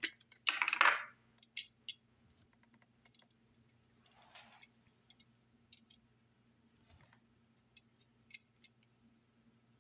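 Clear plastic packaging tray crinkling briefly as a die-cast model car is pulled free, then scattered light clicks and taps as the small metal car is handled.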